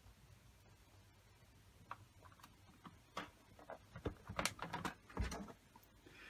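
Faint, scattered clicks and light knocks of small screws and plastic console parts being handled and set in place, sparse at first and more frequent in the second half.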